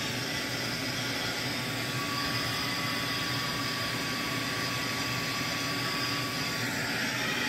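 Hand-held hair dryer running steadily: a constant rush of blown air with a motor hum.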